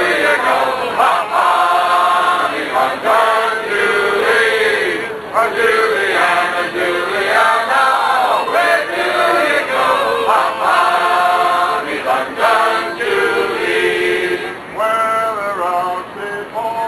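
A group of mostly male voices singing together in chorus, held notes rising and falling without a break.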